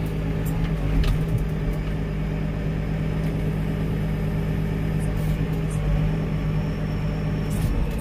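Tractor engine running steadily at an even speed, heard from inside the cab while the front-end loader is cycled up and down on its hydraulics to test it after its mounting pins were reinstalled. There are a few faint clicks.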